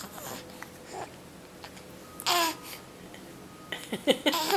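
Baby babbling: a few short pitched coos, the loudest about two seconds in with a falling pitch, then a quick string of short sounds near the end.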